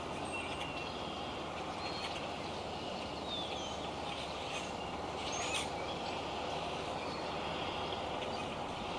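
Steady hiss of rain falling during a shower, with short high chirps and whistles of birds scattered through it.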